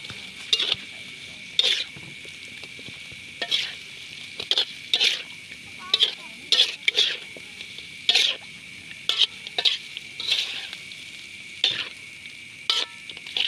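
Eel pieces sizzling as they fry in oil in a metal wok. A spatula stirs and scrapes against the pan in short, irregular strokes, roughly one a second.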